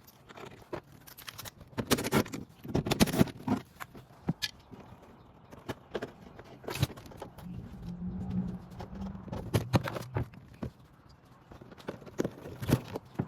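Hands working the carpeted inner trim cover of a car's trunk lid loose: scattered clicks and knocks with rustling, loudest in a cluster about two to three seconds in. A brief low hum comes near the middle.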